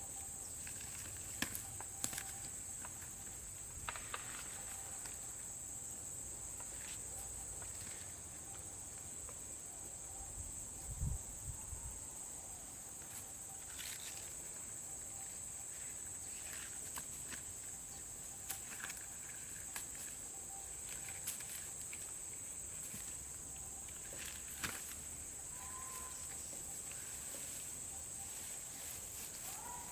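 Insects chirring in one steady high-pitched drone, with scattered light clicks and knocks and a dull low thump about eleven seconds in.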